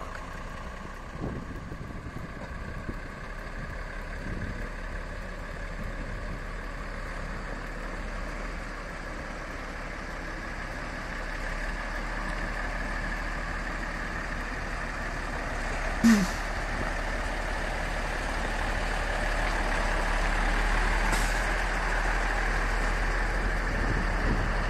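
IVECO 90-16 expedition truck's diesel engine running and growing steadily louder as the truck gets under way. Two short, sharp hissing bursts cut in past the middle, about five seconds apart.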